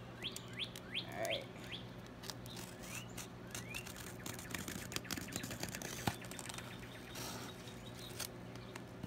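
Small birds chirping repeatedly, with quick rising and falling chirps clustered in the first couple of seconds. Faint scratching and clicks come from a box cutter slicing packing tape on a cardboard box, over a steady low hum.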